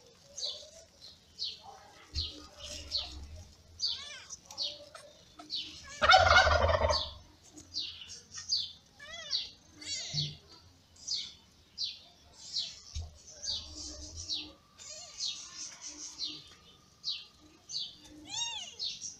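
Newborn kittens crying: a rapid run of short, high-pitched squeaking mews, several a second, with one louder, longer cry about six seconds in.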